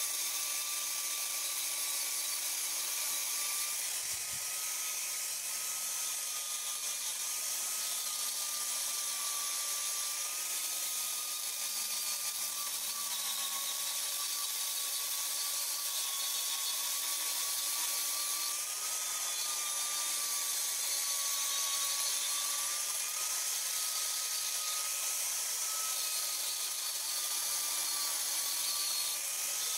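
Angle grinder grinding steel, a continuous high whine over a strong hiss, its pitch wavering slightly.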